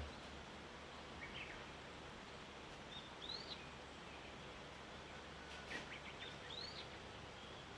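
Small birds calling in the morning: a handful of short, high chirps that arch up and fall back, one near the start, one in the middle and a quick cluster near the end, over a faint steady background hiss.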